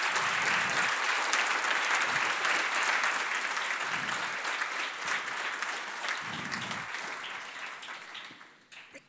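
Audience applause: many hands clapping steadily, then thinning and dying away near the end.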